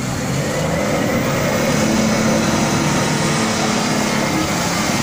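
Engine of an off-road 4x4 running hard under load as it drives through deep mud and water, the revs climbing over the first couple of seconds and then holding.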